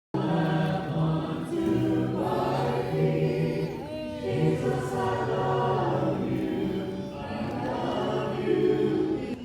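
A choir singing held notes in several voices, starting abruptly after silence.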